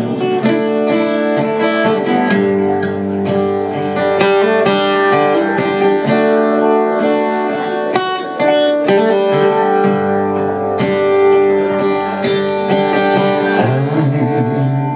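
Steel-string acoustic guitar strummed in an instrumental passage, chords ringing and changing every second or two.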